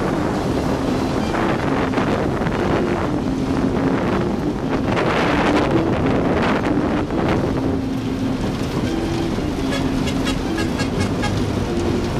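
Diesel locomotive running steadily, with wind rushing over the microphone. A simple melody of short notes plays over it throughout.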